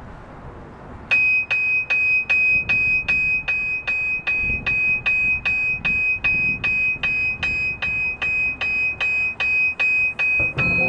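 A marching band's front-ensemble keyboard percussion strikes a single high, bell-like note over and over at a steady pulse of about two and a half strokes a second. It starts suddenly about a second in, and lower notes come in at the very end as the music builds.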